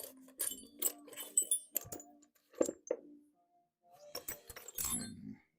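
Small high-speed steel lathe tool bits clinking against each other as they are rummaged through by hand: an irregular string of sharp metallic clinks, thickest near the end.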